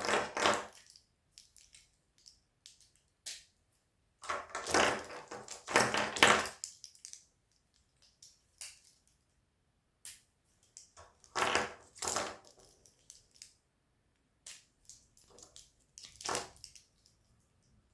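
Handling noise from a newly assembled hat hanger: several bursts of crinkling, crackling rustle with scattered light clicks in between.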